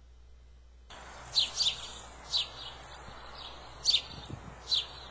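House sparrows chirping: about half a dozen short, sharp chirps at uneven intervals over outdoor background hiss that comes in about a second in.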